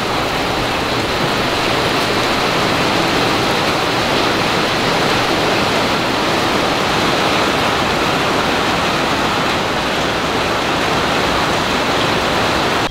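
Steady rain falling, a loud, even hiss with no break.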